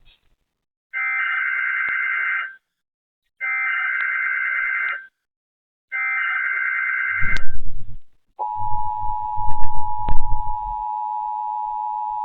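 Emergency Alert System opening signals: three identical warbling digital data bursts (the SAME header) about a second apart, then the EAS two-tone attention signal, a steady dual tone, starting about eight seconds in. A loud low rumble cuts in just before the attention tone and runs under its first couple of seconds.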